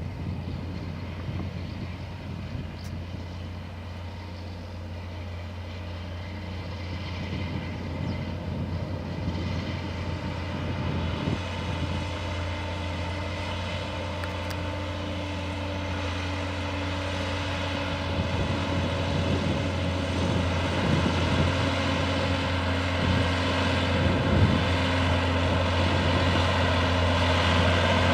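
John Deere 6170R tractor's six-cylinder diesel engine running steadily under load while ploughing, a deep even drone that grows steadily louder as the tractor approaches.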